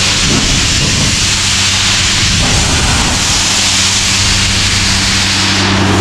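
Compressed-air blow gun blasting a steady loud hiss of air, with the low, even drone of the diesel air compressor's engine running under it.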